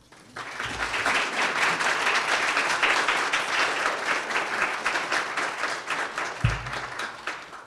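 Audience applauding: dense clapping that starts about half a second in and fades away near the end. A low thump sounds about six and a half seconds in.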